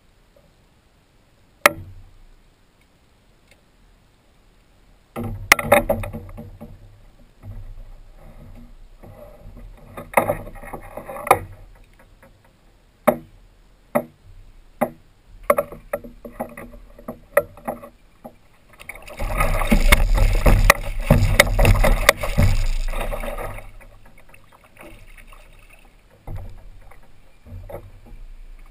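A coho salmon being landed beside a plastic Hobie kayak: scattered sharp knocks against the hull and splashing, with about four seconds of heavy thrashing and splashing a little past the middle.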